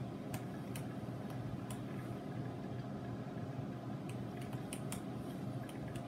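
1989 Mr. Coffee Jr. JR4 drip coffee maker brewing: a steady low rumble with scattered light clicks and ticks as coffee drips into the glass carafe.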